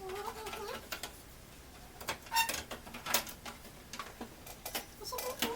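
Irregular small clicks and taps of computer parts being handled and fitted into a PC case, with a brief voice sound at the start and another near the end.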